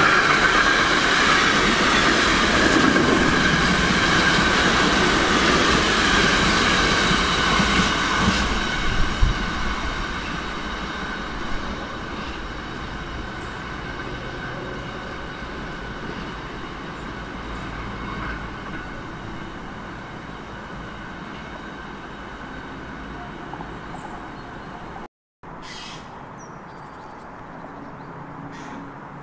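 A class 186 electric locomotive and its freight train of tank wagons pass at speed. The wheels rush over the rails under a steady high whine, with a few clacks from the wagons. The sound fades slowly as the train draws away.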